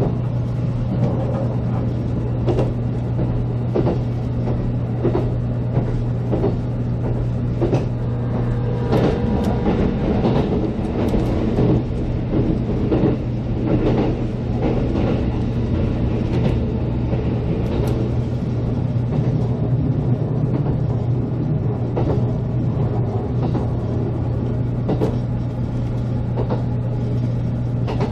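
JR Kyushu 783 series limited-express electric train running at speed, heard from inside the front car. A steady low hum sits under the rumble of wheels on rail, with scattered clicks throughout.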